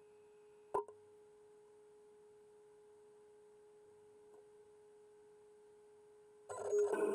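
Home-built CNC milling machine standing idle with a faint, steady electrical whine at one pitch, and a single sharp click about a second in. Near the end a much louder machine noise starts.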